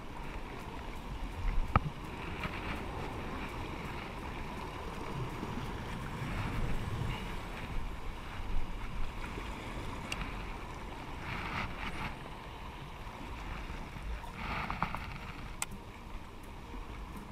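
Sea water washing and splashing against shoreline rocks in repeated surges, with wind on the microphone. There is a single sharp click about two seconds in.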